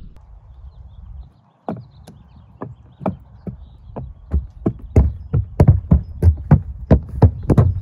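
Horse's hooves striking the wooden planks of an elevated bridge ramp as it walks across, a regular series of sharp knocks at about three a second. The knocks grow louder about halfway through.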